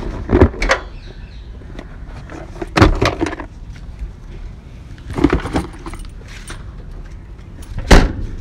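Things being handled and set into a car's open trunk, with a few short knocks and rattles, then the trunk lid of a Honda sedan slammed shut near the end in one sharp, loud thump.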